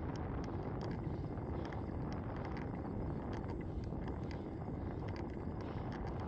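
Wind rushing over the microphone of a camera on a moving bicycle, with a steady rumble of rolling over the pavement and scattered light clicks and rattles.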